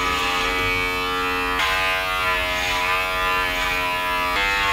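Electric hair clippers buzzing steadily while cutting hair on a head, with the hum stepping slightly in pitch about a second and a half in and again near the end.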